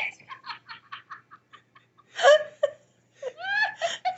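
A person laughing: a quick run of short laughs that fade over the first two seconds, then a louder burst of laughter about two seconds in, and a rising laugh near the end.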